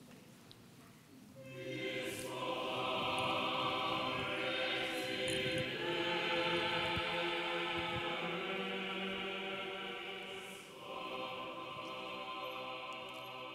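Orthodox church choir singing a chant in long, held chords, coming in about a second and a half in, with a short break about ten and a half seconds in before it carries on.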